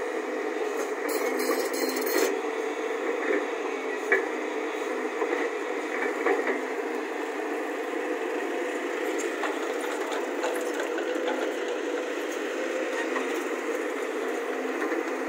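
JCB JS140 tracked excavator's diesel engine running steadily as the machine digs into soil. A few sharp knocks come in the first half.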